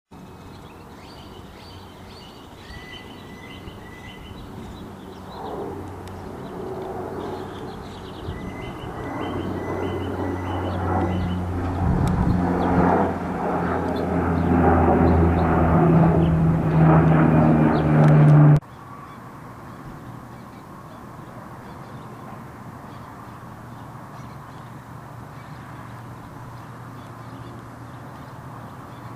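Four-engine turboprop aircraft flying over, a propeller drone with steady low tones growing louder for about eighteen seconds and then cutting off abruptly. Birds chirp repeatedly over the first part, and after the cut only a faint steady rumble remains.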